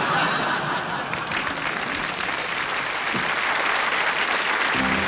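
Studio audience applauding steadily after a comedy sketch's punchline, with band music coming in near the end.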